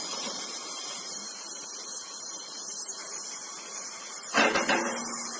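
Oxy-fuel brazing torch flame hissing steadily, with a brief louder noise about four seconds in.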